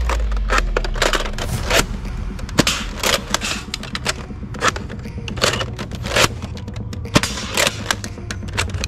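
Nerf Elite Trilogy foam-dart blaster being pumped and fired again and again. It gives a quick series of sharp plastic clicks and clacks, mixed with darts striking plastic targets.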